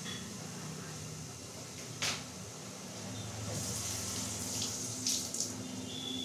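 Masala paneer gravy simmering and bubbling under a steel lid in a kadai, a steady watery hiss with a few small crackles, and a single sharp click about two seconds in.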